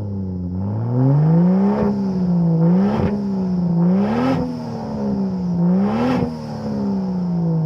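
Volvo S60 T6 engine being revved, its pitch climbing and falling back about four times, with a sharp crack at the top of several of the revs.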